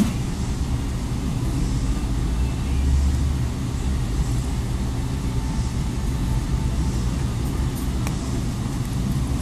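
Steady low background rumble, with a few faint clicks near the end as small plastic phone parts are handled.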